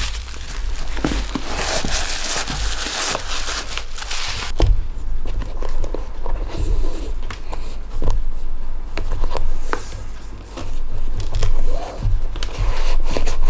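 Crinkling and rustling while new white leather sneakers are handled for about the first four and a half seconds. Then come the soft rubbing and small taps of a cotton shoelace being drawn through the eyelets as the shoes are laced.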